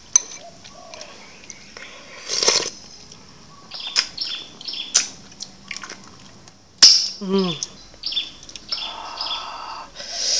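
Eating sounds from ambuyat (sticky sago starch) dipped in fish soup: chewing and wet mouth clicks and smacks, with short bird chirps in the background.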